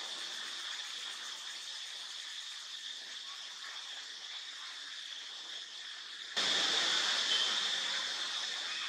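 Steady outdoor background hiss with a constant high-pitched edge, which gets suddenly louder about six and a half seconds in.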